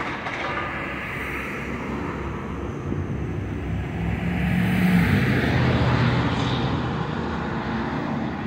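Diesel engine of heavy demolition equipment running steadily. It grows louder about four seconds in, is loudest around five seconds, then eases slightly.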